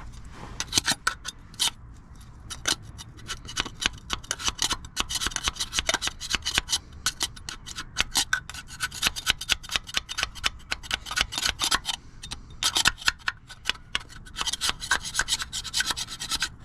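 Scraper rasping old RTV liquid-gasket sealant off a water pump mounting surface on an engine, in many quick back-and-forth strokes with short pauses, cleaning the face flat so the new pump seals without leaks.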